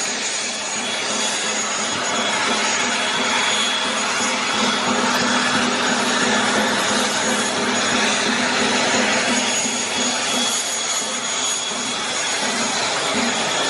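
Aircraft turbine engine running: a steady, even rushing noise with a thin, constant high whine.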